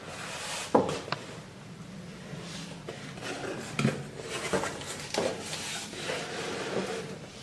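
A Silver Play Button's box and packaging being handled: irregular knocks, clicks and rubbing, with a sharp knock less than a second in.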